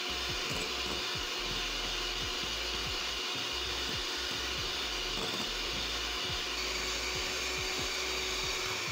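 Electric hand mixer running steadily, its beaters whipping margarine in a glass bowl until it turns pale.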